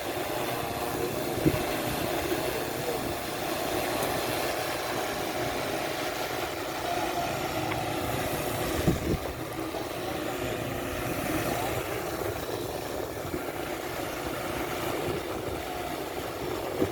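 Quadcopter drone's propellers buzzing steadily in flight, the pitch wavering slightly, with two brief knocks, one near the start and one about halfway.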